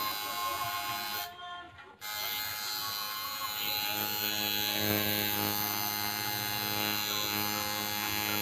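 Tattoo machine buzzing steadily while it is worked on the skin. It stops for a moment just over a second in, then starts again.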